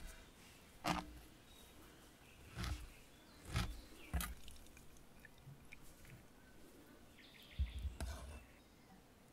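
A handful of short, soft knocks and taps spread over several seconds, kitchen utensils handled against a clay pot, over a faint steady outdoor background.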